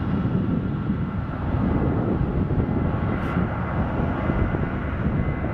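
Boeing 737-700's CFM56-7B jet engines running at low power as the airliner taxis, a steady rumble with a faint high whine on top.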